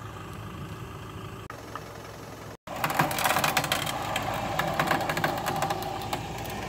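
Mitsubishi Pajero Sport off-road SUV with a front-bumper winch: the engine idles steadily. About two and a half seconds in, after a cut, a louder steady mechanical whine starts, with a fast rattle.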